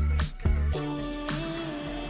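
Background song with a deep bass beat and a held sung note.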